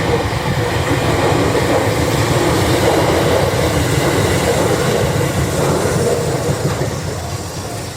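Electric train passing close by, its wheels running over the rails. The sound is loudest about three seconds in and fades toward the end.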